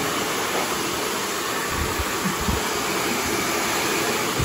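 Handheld hair dryer running steadily, blowing onto an aluminium foil cap over bleached hair, with a few low thumps of air buffeting about two seconds in.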